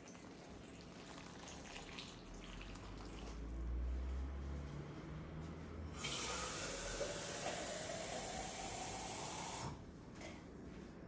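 Water poured into a glass bowl of cubed aubergine. The pour is faint at first, then louder about six seconds in, its pitch rising as the bowl fills. It stops sharply near the end, leaving a few drips.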